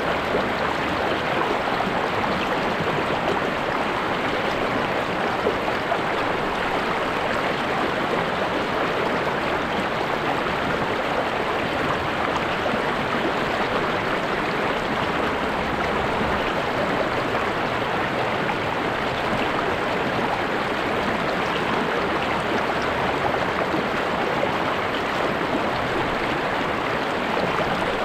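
River water flowing over a streambed, a steady, even rushing that does not change.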